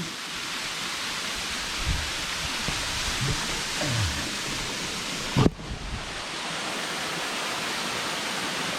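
Waterfall rushing with a steady roar of falling water. A single sharp knock about halfway through.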